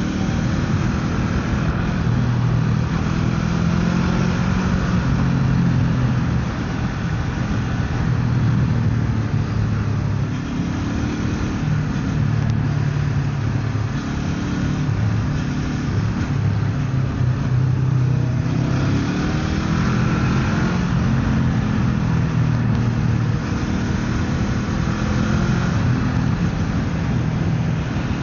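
Motorcycle engine running on the move, its note stepping up and down with throttle and gear changes, over a steady rush of wind noise.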